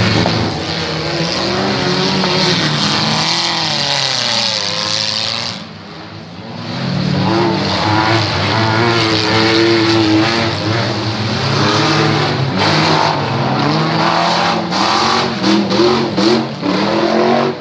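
Demolition derby cars' engines revving hard, their pitch rising and falling, with a brief lull about six seconds in and a run of sharp knocks through the second half.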